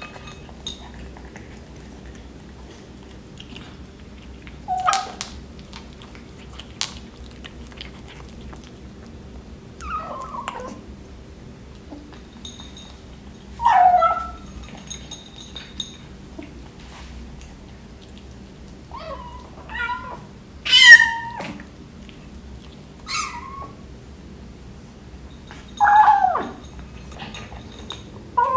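British Shorthair kitten making short meows and squeaky calls while eating, about seven of them spaced a few seconds apart, the loudest about two-thirds of the way through, with faint clicks between.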